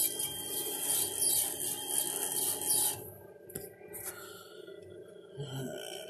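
Laser engraver's exhaust fan running with a loud, steady rush of air, which cuts out about three seconds in, leaving a quieter steady hum.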